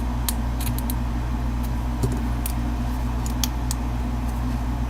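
Lock pick and tension wrench working the pins of a cheap padlock: scattered light metallic clicks and ticks as the last pins are set after a false set. A steady low hum runs underneath.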